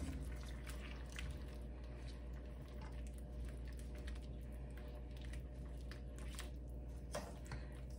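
Spatula stirring chunks of root vegetable through a thin soy sauce and brown sugar liquid in a stainless steel pan: soft wet squishes and light scrapes, over a steady low hum.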